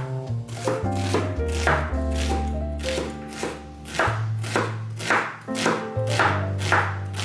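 A chef's knife chopping an onion on a wooden cutting board: a run of quick, repeated chops over background music.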